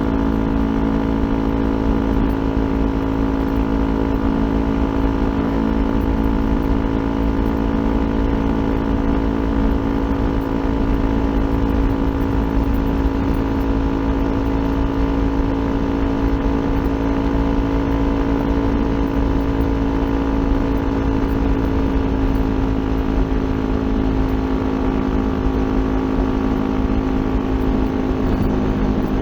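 Kawasaki Ninja 400's parallel-twin engine through an aftermarket Akrapovic exhaust, held at a steady engine speed while cruising, with a low rumble of wind and road underneath.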